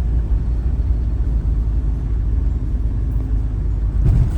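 Camper van driving on the road, heard from inside the cab: a steady low rumble of engine and tyre noise, with a brief louder thump about four seconds in.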